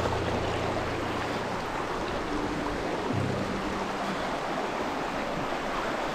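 Rushing mountain creek, a steady hiss of water, under background music with low held notes.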